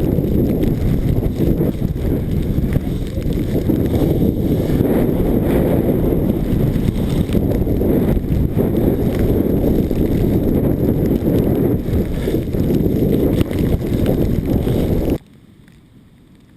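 Strong storm wind buffeting the microphone: a loud, steady low rumble that cuts off abruptly near the end.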